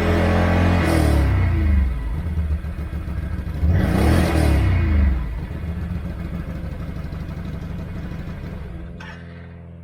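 Can-Am Outlander 650 ATV's V-twin engine being revved through its exhaust: held high, dropping back about a second and a half in, blipped again about four seconds in, then falling back to a steady idle.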